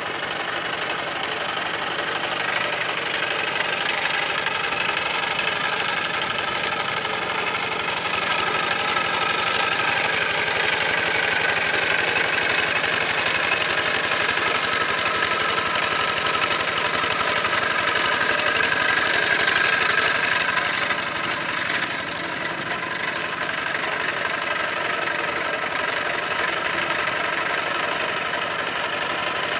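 Old Kubota walk-behind hand tractor's single-cylinder diesel engine running steadily under load as its cage wheels drag through a flooded rice paddy, levelling the mud. It grows a little louder for a stretch and eases back about two-thirds of the way through.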